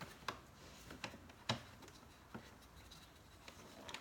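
A few faint, separate clicks and taps of small plastic and metal parts being handled: door lock and handle cable ends being fitted into the door-handle mechanism. The sharpest click comes about a second and a half in.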